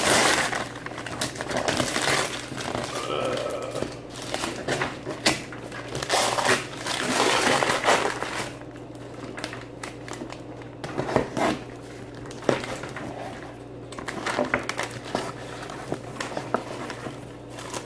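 Cardboard box being opened by hand: paper and packing crinkling and rustling for about the first eight seconds, then scattered taps and rustles as the cardboard flaps are handled. A steady low hum runs underneath.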